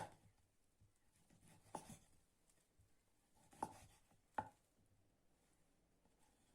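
A few short, sharp knocks of something hard set down or struck on a hard surface, four in all at uneven spacing over the first four and a half seconds, the first the loudest.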